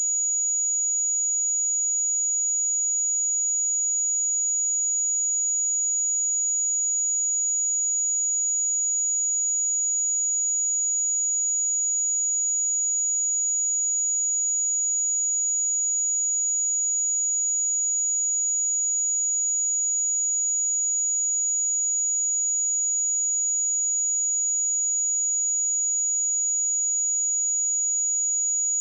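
A steady, unbroken 6822 Hz sine-wave test tone: one pure high-pitched whistle at a constant level.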